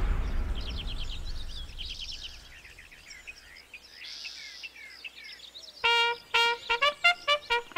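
Birds chirping in quick series of short falling notes. About six seconds in, a louder trumpet tune of short, clipped notes starts.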